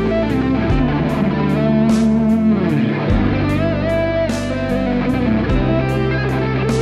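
Strandberg Boden OS 7 seven-string headless electric guitar being picked, a melodic line ringing over sustained low notes, with evenly spaced sharp attacks.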